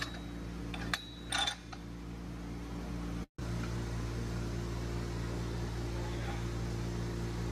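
Steel parts of a Pro-Tools MB105HD manual tube bender clinking, twice about a second in, over a steady low hum. The sound cuts out briefly just after three seconds, then the hum goes on.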